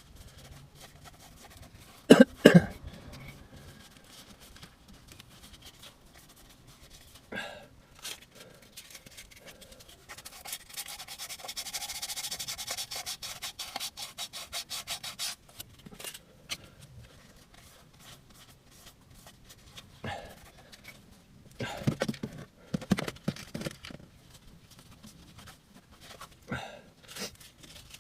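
Rapid scraping on a van part, a hand brush or abrasive worked quickly back and forth for about five seconds near the middle. Around it come scattered knocks and clunks of tools and parts being handled, the loudest a pair about two seconds in.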